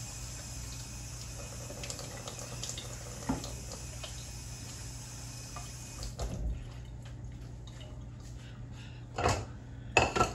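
Steady hiss of running water from a tap that cuts off suddenly about six seconds in, over a low steady hum; after it come a few light clicks and two short, louder knocks near the end.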